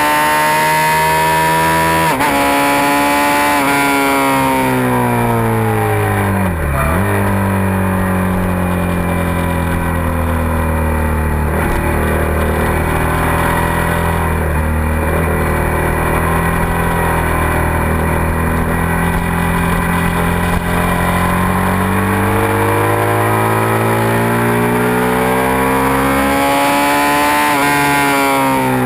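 Suzuki SV650 V-twin motorcycle engine at track pace: its pitch falls as it slows over the first several seconds, dips sharply once about seven seconds in, runs low and steady through a long leaned-over corner, then climbs as it accelerates out and drops again near the end. Wind rushes over the bike at the faster moments.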